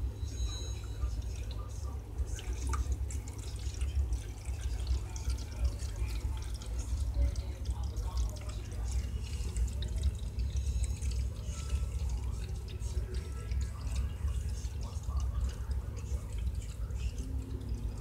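Pet drinking fountain running: a thin stream of water pouring into the bowl and splashing, with steady small irregular drips and splashes over a constant low hum.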